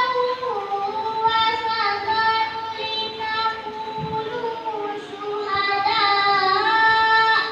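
A boy chanting Qur'an recitation in the melodic tilawah style, holding long notes with ornamented turns between them. A final held note breaks off sharply near the end.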